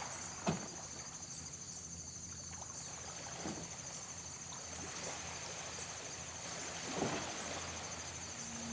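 Small waves lapping softly on a shell beach, three times, about three and a half seconds apart, over a steady high chirring of insects. A low, steady electronic synth tone begins to swell in right at the end.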